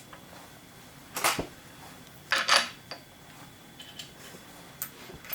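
Metal tools clinking and clattering as they are handled on a workbench: two short clatters about a second apart, then a few light ticks.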